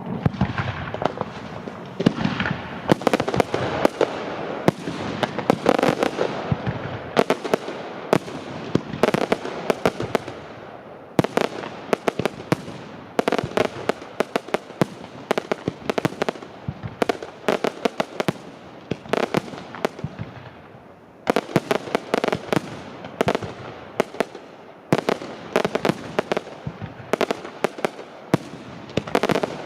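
Fireworks display: a rapid, continuous barrage of bangs and crackling shells with a rumbling echo between them, easing off briefly about two-thirds of the way through before picking up again.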